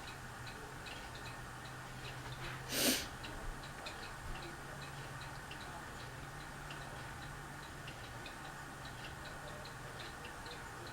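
A clock ticking steadily, a few ticks a second, over the steady low hum of a running Fasco Gulf Stream ceiling fan. A short burst of noise comes about three seconds in.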